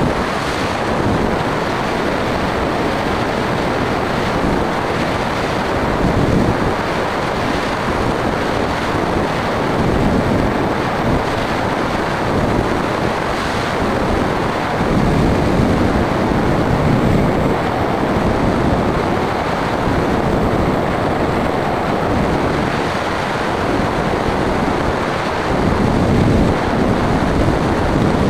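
Steady rush of wind over the microphone of a camera riding on a small airplane in flight, with the airplane's motor and propeller running underneath. It gets a little louder near the end.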